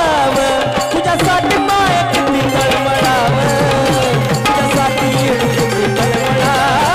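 Instrumental passage of a Marathi folk devotional song: an ornamented melody played over a steady drum rhythm.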